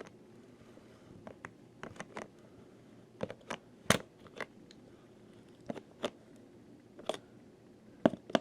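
Scattered sharp clicks and light taps from a hand tool tightening a nut onto a plastic trim mounting post, which is repaired with JB Weld Plastic Weld and holds. The loudest click comes about four seconds in.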